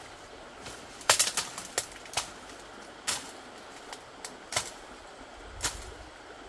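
Irregular sharp knocks and clicks of hard objects: a quick cluster about a second in, then single knocks every second or so, over a steady low background noise.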